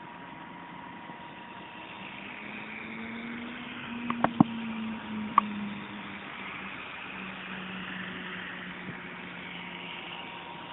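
Ikarus Eco 7 electric radio-controlled helicopter in flight: a steady hum from its motor and rotors with a thin whine over a hiss, growing a little louder about two seconds in. A few sharp clicks come about four seconds in and once more a second later.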